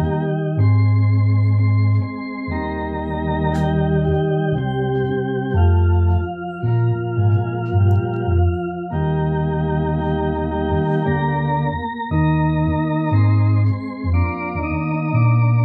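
Tokai two-manual electronic organ playing a slow hymn in sustained chords over a strong bass line, the chords changing every second or two, with a light vibrato on the upper notes.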